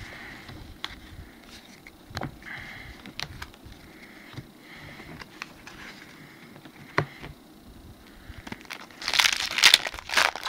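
Trading cards being handled and sorted, with scattered light clicks and slaps of card stock. Near the end, a foil booster pack crinkles loudly as it is torn open.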